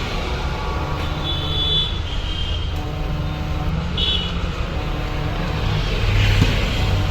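Steady low rumble of motor vehicle engines running, with short high-pitched beeps about a second in and again around four seconds in.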